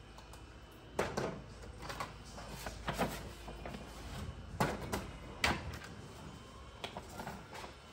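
Scattered light knocks and clatter of hands at kitchen prep work: rice paper wrappers are dipped in a bowl of water and laid on ceramic plates. The sharpest knocks come about a second in, near three seconds, and around five seconds.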